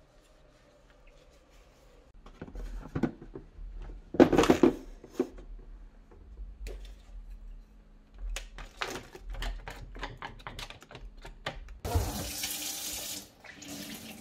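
Plastic takeout containers clattering, and food scraps knocked out of a clear plastic tray into a compost bin. About twelve seconds in, a kitchen tap runs hard into a stainless-steel sink for about a second to rinse a plastic bento tray, then drops to a lighter trickle.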